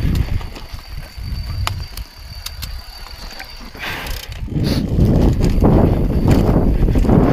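Mountain bike coasting fast down a dirt forest trail: tyres rumbling over the ground, sharp rattles and clicks from the bike, and a steady high freehub buzz. From about five seconds in, a louder rush of wind and tyre noise takes over as the bike picks up speed.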